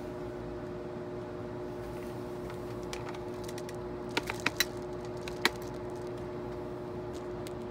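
Handheld micromotor manicure drill with a fine diamond bit running with a steady hum. A few sharp clicks come about four seconds in, and a louder one about five and a half seconds in.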